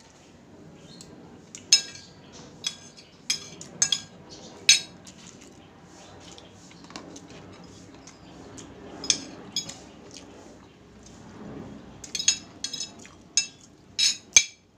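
Metal spoon and fork clinking and scraping on a ceramic plate while eating, in sharp clicks that come in runs: several in the first five seconds, one about nine seconds in, and a quick series near the end.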